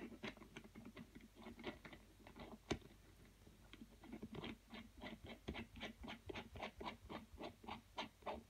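Faint clicking and scraping of a threaded steel fitting being screwed by hand into a port in an aluminium block, done only finger-tight rather than with a spanner. The clicks are irregular at first; from about four seconds in they settle into an even run of about three or four a second as the fitting is turned on its threads.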